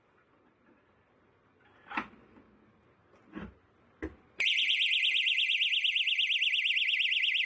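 A few knocks, then a door stop alarm goes off as the door is pushed against it, sounding a loud, high, rapidly warbling shriek that starts abruptly.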